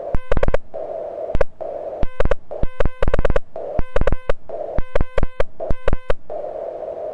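Morse code being keyed on a Mountain Topper MTR4B QRP transceiver: short dots and dashes of a buzzy sidetone at about 500 Hz. Between them the receiver's narrow-filtered hiss fills the gaps, dropping out while the key is down, and after about six seconds the hiss runs alone.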